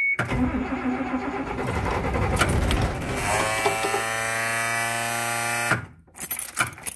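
Electric starter motor cranking a cold diesel bus engine for about six seconds. It runs rough and uneven at first, then settles into a steady whine about three seconds in, and cuts off without the engine catching.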